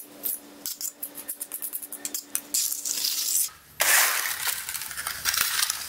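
Steel trowel scraping across a thin sand-and-cement patch as it is spread and feathered over pitted concrete. A quick run of small ticks and rasps comes first, then a short pause, then a longer steady scrape from about four seconds in.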